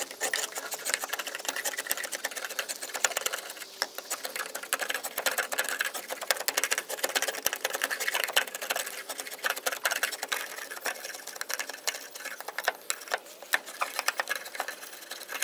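Draw knife stripping bark from an Osage orange (hedge wood) stick: a fast, dense run of scraping clicks as the blade is pulled along the wood in short strokes.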